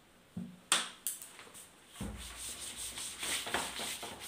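Blackboard duster rubbing chalk off a blackboard in quick back-and-forth strokes, starting about two seconds in after a couple of light knocks.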